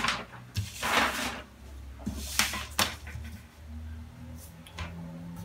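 Kraft paper rustling as a pattern piece is handled on a table, followed by two light clicks or taps, over a faint steady hum.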